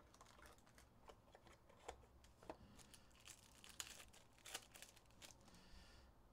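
Faint tearing and crinkling of a trading-card box and pack wrapper being opened by hand, with soft scattered clicks and rustles.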